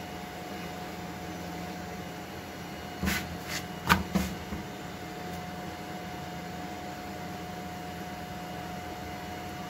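Besan roti flipped by hand on a hot iron tawa: a few short knocks and a sharp slap or click about four seconds in as it is turned and dropped back onto the griddle, over a steady low background hum.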